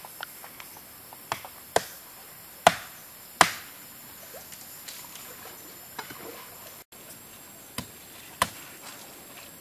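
Machete chopping: a few separate sharp strikes, the loudest two about three-quarters of a second apart in the first half, then a couple of lighter knocks near the end.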